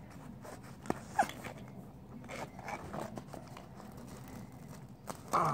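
Faint rustling and handling noise of plastic dolls being moved about, with a light tap a little under a second in and a brief high squeak just after.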